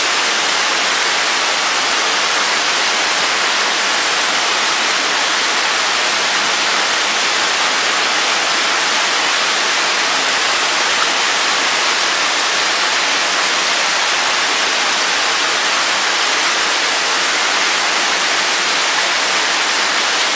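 A steady, even rushing hiss with no breaks or changes.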